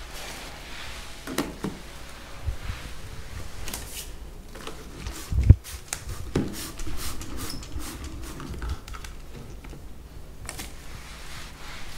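Trigger spray bottle spritzing floor polish onto a hardwood floor in a series of short hisses, with handling knocks and one louder thump about five and a half seconds in.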